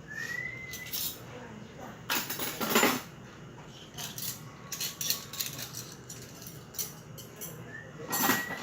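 Dishes and utensils clattering and clinking in a few short bursts, the loudest about two to three seconds in and another near the end, with a brief high rising squeak near the start.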